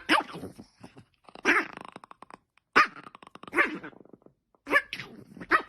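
A dog giving a run of short barks and vocal calls, about seven in all, at uneven intervals.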